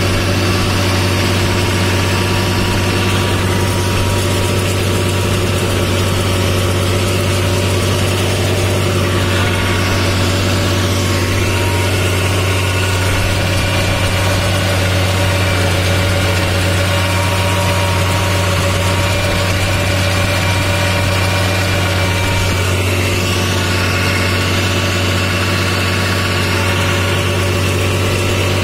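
Tractor diesel engine running steadily, heard from the driver's seat, with a round baler hitched behind.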